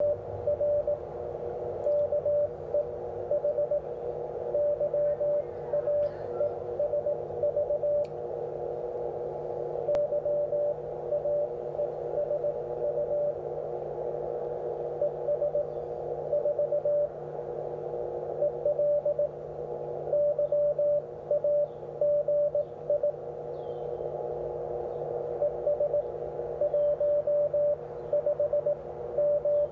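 Morse code (CW) on the 17-metre amateur band, received on a Xiegu X6100 HF transceiver: a keyed tone sending bursts of dots and dashes, with short pauses between groups, over steady filtered band hiss and a steady lower tone.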